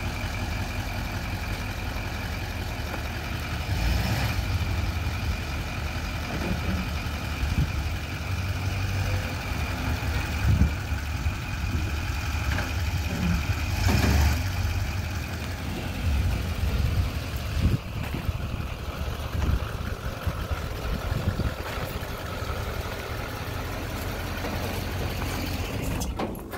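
GMC C4500's Duramax V8 turbodiesel running, at idle and pulling the truck slowly past, with a steady high whine over the diesel drone; the sound swells about fourteen seconds in as the truck goes by, and falls away sharply at the very end.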